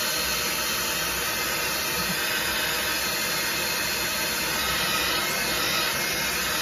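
Handheld hairdryer blowing steadily as it dries wet watercolour paint.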